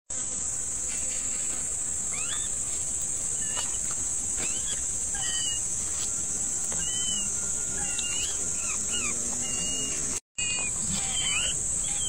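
Steady high-pitched insect buzz, with short chirps repeating about once a second over it. The sound breaks off for a moment near the end.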